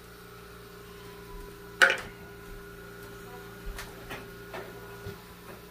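A single sharp clack about two seconds in as a spatula is put down on the metal baking trays, then a few light knocks of footsteps on the kitchen floor, over a steady electrical hum.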